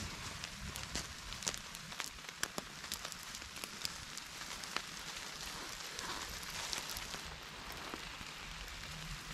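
Small stick campfire crackling, with frequent sharp pops over a steady hiss, while a trout cooks directly on its coals.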